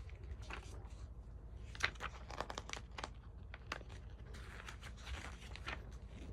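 Glossy magazine pages being handled and turned: faint paper rustling and crinkling with small clicks and taps, including a longer swish of a page about four and a half seconds in.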